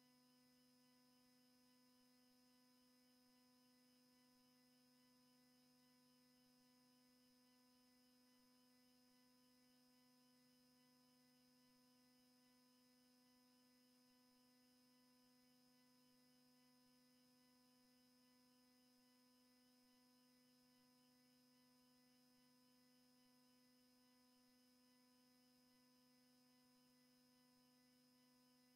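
Near silence with a faint, steady electrical hum made of several fixed tones.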